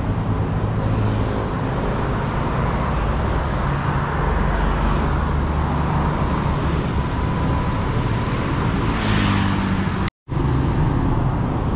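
Steady road traffic: cars and motorbikes running on a busy street, with a continuous low engine hum. The sound breaks off in a brief drop-out a little after ten seconds in.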